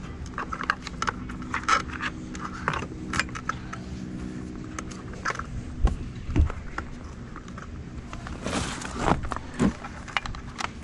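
Wiring and plastic connectors being handled and pushed into an e-bike's frame battery compartment: irregular clicks, rattles and scrapes, with two dull knocks about six seconds in and a longer scraping rustle near the end.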